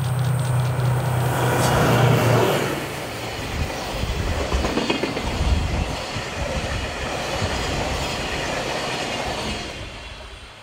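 A DF200 diesel-electric freight locomotive passes close with a steady low engine hum that is loudest about two seconds in. Then comes the clatter of a string of oil tank wagons rolling past on the rails, which fades near the end as the train moves away.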